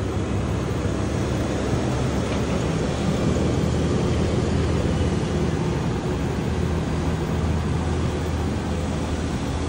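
Cummins turbo-diesel of a RAM 2500 idling steadily through an aftermarket plug-and-play exhaust diffuser with a 6-inch tip: a low, even rumble.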